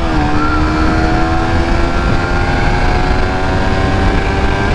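Suzuki GSX-R150's single-cylinder engine pulling under hard acceleration in one gear, its pitch climbing slowly and steadily, with heavy wind rush on the microphone.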